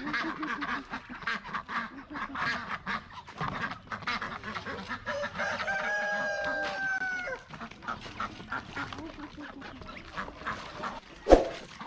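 A flock of farm poultry calling with many short, rapid clucks and honks. About halfway through one bird gives a single long call lasting around two seconds. A sharp knock comes near the end.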